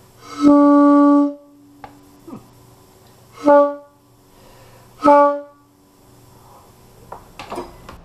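Homemade PVC horn with an oil-funnel bell, blown by mouth through a hose. It gives one steady blast of about a second, then two short blasts, all on the same single note.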